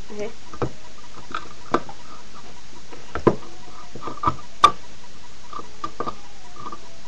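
Small credit card knife blade being pushed into and levered along the rim of a tin can: an irregular string of sharp metal clicks and taps, the loudest about four and a half seconds in, over a steady hiss.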